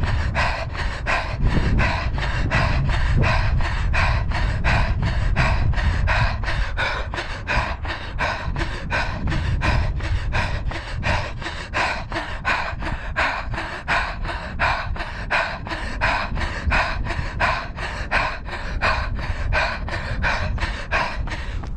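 A runner's hard, rhythmic panting, about three puffs a second, while running hard up a long hill at tempo pace.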